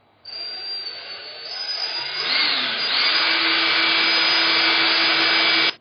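Cordless drill with a long 16 mm formwork drill bit boring a hole through a window frame. The drill runs up to speed over the first two seconds or so, then runs steady before stopping suddenly near the end.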